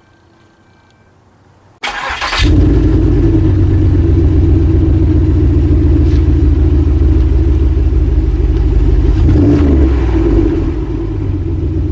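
The 5.3 L V8 of a Pontiac Grand Prix GXP starting: a short burst of cranking about two seconds in, then the engine catches and runs steadily and loud, easing slightly near the end.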